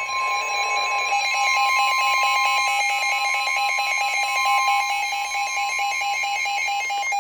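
Emergency alert alarm tone announcing a severe thunderstorm warning. A steady high tone sounds over a fast, evenly pulsing beep; the steady tone stops about three seconds in and the pulsing beep carries on.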